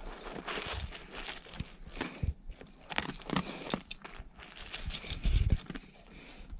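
Newfoundland dog eating dry kibble from a stainless steel bowl: a dense run of crisp crunches as it chews the pellets, loudest about five seconds in.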